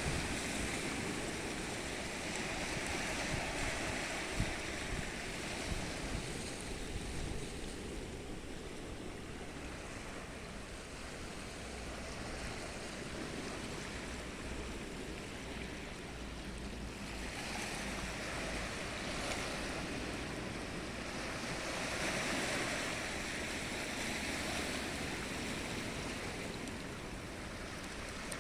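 Sea waves breaking and washing on the shore, a steady rush of surf that swells and eases several times.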